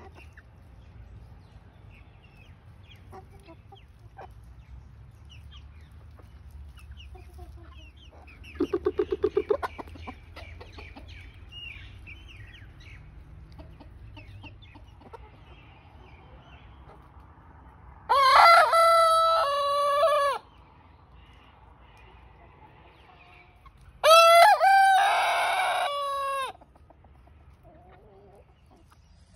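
Silkie chickens clucking softly, with a quick run of rapid clucks about nine seconds in. Then a Silkie rooster crows twice, about six seconds apart, each crow loud and about two seconds long.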